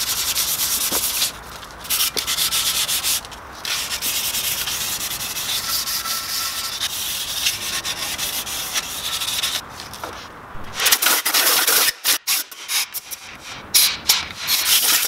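Compressed air from a blow gun hissing over a cleaned engine block: a steady hiss broken by a few short pauses, then a run of short on-off blasts near the end.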